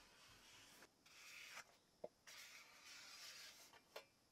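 Faint strokes of a paint marker rubbing on sheet steel, twice, with a couple of light clicks.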